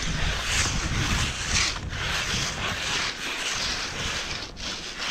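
Cross-country skis sliding and scraping over crusty snow, the hiss swelling with each stride about once a second, with a low rumble of wind on the microphone.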